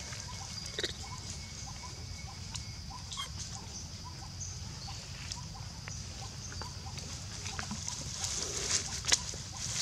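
Outdoor ambience with faint, evenly repeated animal calls over a steady high hiss. Near the end, dry leaves crackle as a baby macaque steps across them.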